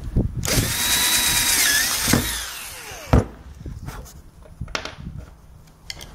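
Cordless drill boring a 1/4-inch bit through molded Kydex sheet. It runs for about two seconds with its pitch dipping once as the bit bites, then winds down. A sharp knock comes about three seconds in, followed by a few small clicks.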